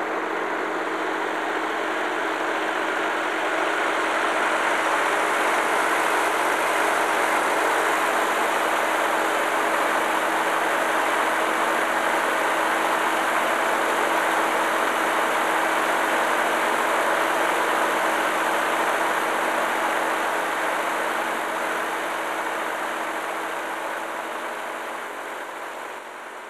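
Ferguson TEA20 tractor engine running steadily, fading out near the end.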